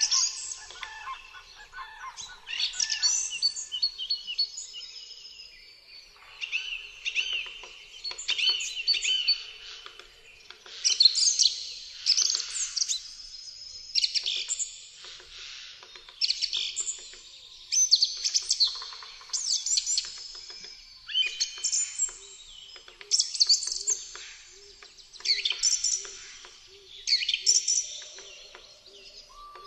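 Songbirds singing, high chirping song phrases repeating every couple of seconds.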